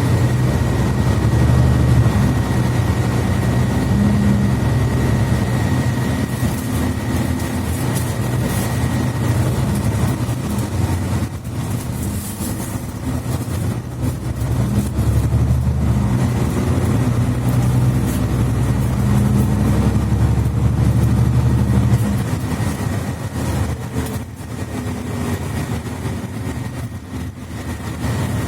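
Mercedes-Benz Citaro C2 articulated bus with Voith automatic transmission, heard from inside while driving: a steady low diesel engine drone, with a thin high whine through the first third. It eases off briefly twice, about a third of the way in and again near the end.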